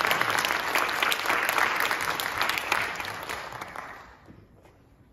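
Audience applause, many people clapping, which dies away about four seconds in.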